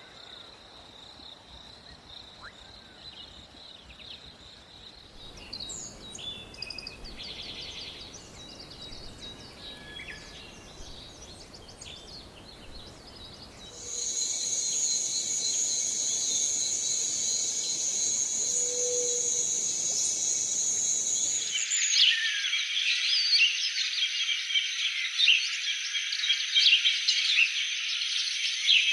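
Forest ambience of insects and birds: a steady high insect drone with scattered bird chirps, then a louder, denser insect chorus that starts suddenly about halfway through. Near the end it gives way to busy, overlapping bird chatter, the loudest part.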